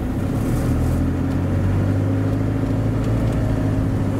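Steady engine and road noise of a Toyota HiAce van being driven, heard from inside the cabin as a continuous low drone.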